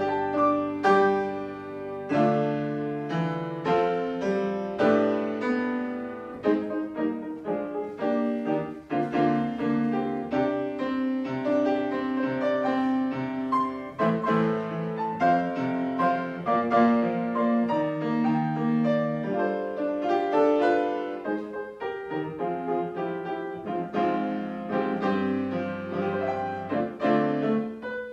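Grand piano played solo: a slow piece of chords under a melody, each note struck and left to ring.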